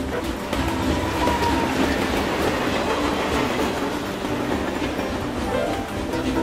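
Cartoon steam train sound effect: a train running on rails with its wheels clattering, over background music.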